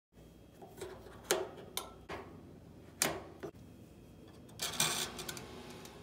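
A string of sharp clicks and knocks spaced irregularly, about six in all, then a short rustling scrape a little before the end, the sounds of hands handling kitchen appliance controls and fittings.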